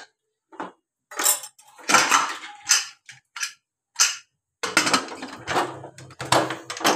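Metal clatter at an aluminium pressure cooker: a steel spoon knocking and scraping against the pot, then the lid being set on and fitted closed, in a denser run of clanks near the end.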